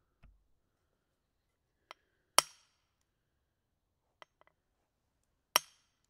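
A maul striking a steel wedge twice, about three seconds apart, each blow a sharp metallic clank with a brief ringing tail. Each blow comes after a much fainter tap.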